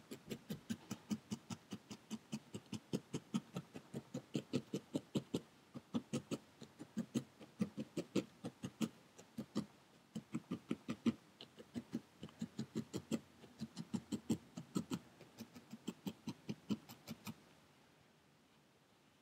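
Felting needle stabbing rapidly and repeatedly through wool into a foam pad, about four pokes a second, as a needle-felted pumpkin is sculpted into shape. The pokes stop suddenly near the end.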